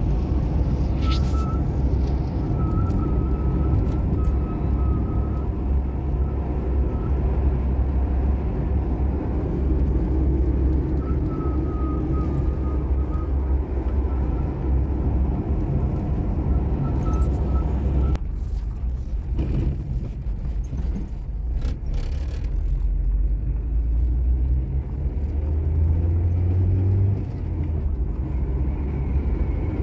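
Steady low rumble of road and engine noise heard from inside a moving car, with a faint high whine that comes and goes.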